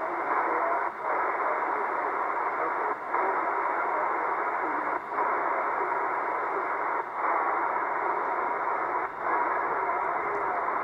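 Static hiss from a C. Crane Skywave SSB2 shortwave receiver in single-sideband mode, between transmissions. The hiss dips briefly about every two seconds, and faint, garbled voices waver underneath it.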